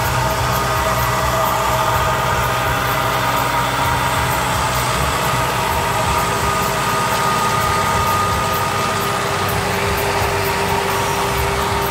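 Zetor Forterra tractor's diesel engine running steadily while pulling a corn planter, heard from a car driving alongside, with the car's own low rumble under it.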